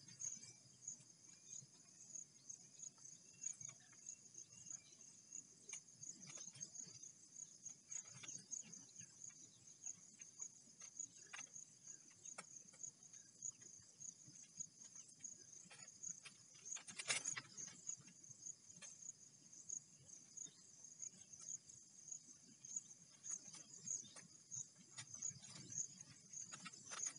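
Crickets or other insects chirping steadily in a high, fast-pulsing trill, with faint scattered clicks and scrapes of handwork and one louder click about two-thirds of the way through.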